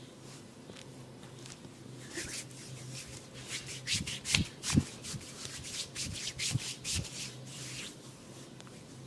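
Hands rubbing and patting a person's head and skin in a massage: a run of short rubbing strokes starting about two seconds in, with a few dull thumps around the middle, fading out near the end.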